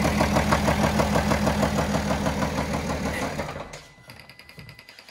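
BMW 535d's 3.0-litre straight-six diesel running with a loud, regular knock from the bottom end, then shutting off about three and a half seconds in. The knock is the sign of a failed connecting rod bearing, which the mechanic calls a not unusual problem on this engine.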